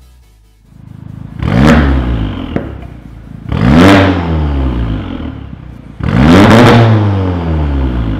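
Audi A5 B9 with an Armytrix cat-back exhaust, its valves open, free-revved three times while parked. Each rev climbs and falls back to idle, the last held the longest.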